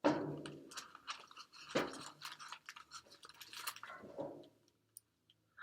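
Crinkly rustling and handling noise: a run of small crackles and scrapes that dies away near the end.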